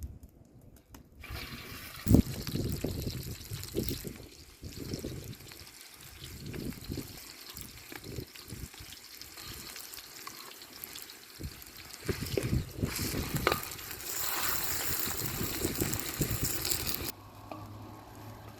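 Water being poured and splashing, with irregular sloshes and a sharp knock about two seconds in. A steadier pour runs for about three seconds near the end, then stops abruptly.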